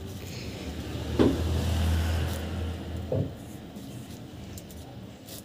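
Low rumble of a passing motor vehicle, swelling about a second in and fading away after about three seconds.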